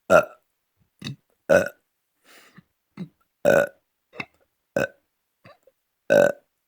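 A person burping over and over: a row of short belches, about eight of them, roughly one every half second to second, some much louder than others.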